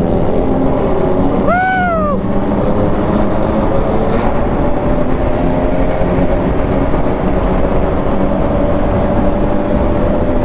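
Car engine running steadily through a loud aftermarket full-system exhaust, revs held nearly constant with a slight slow rise. About two seconds in, a brief whistle-like tone rises and falls over it.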